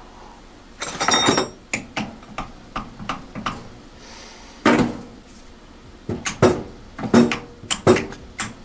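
Metal tools and machine parts clanking and clinking on a milling machine's table and vise: a dozen or so sharp, ringing knocks at irregular intervals, the loudest cluster about a second in and another near the middle.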